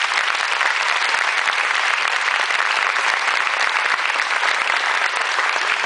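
Theatre audience applauding: many hands clapping in a dense, steady wash of claps.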